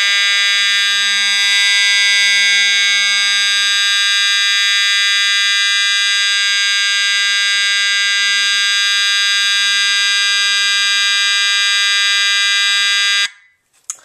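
Edwards EST 757-7A-HS Integrity fire alarm horn, an early version fitted with the 792-series sounder, sounding a loud, continuous steady tone with no temporal pattern. It cuts off suddenly about 13 seconds in.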